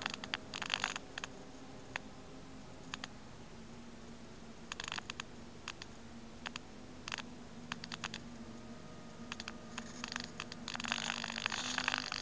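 Faint steady buzz of a hexcopter's motors hovering a distance away, its pitch wavering slightly. Scattered sharp ticks and short crackling bursts close to the microphone, thickening near the end.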